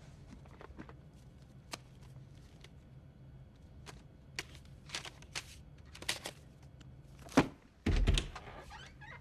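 Scattered small knocks and taps of objects being handled over a low room hum. About seven seconds in there is a sharp knock, then a heavier thud just after it.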